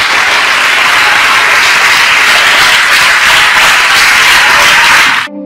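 Large audience applauding loudly after a speech, a dense steady clapping that cuts off abruptly near the end.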